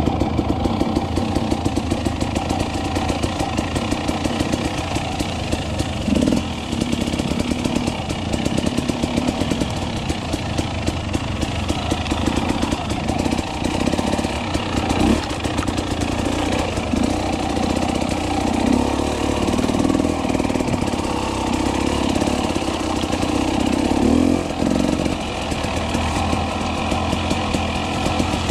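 KTM 300 XC-W two-stroke enduro motorcycle engine running hard on a trail, its revs rising and falling through the whole stretch.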